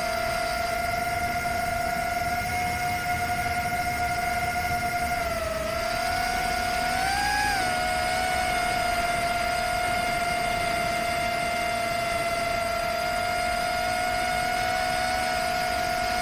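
Rekon 5 FPV quadcopter's brushless motors and propellers whining steadily in flight, one pitch with overtones; the pitch dips and then briefly rises about six to seven seconds in. Low wind rumble underneath.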